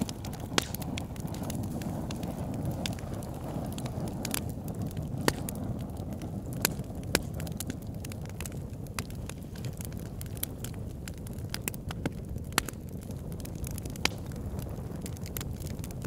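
Campfire burning: a steady low rush of flames with frequent sharp crackles and pops of burning wood, a handful of louder pops standing out.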